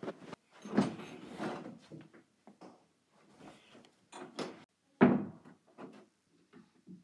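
A string of knocks and bumps with some clatter, the loudest a single sharp knock about five seconds in.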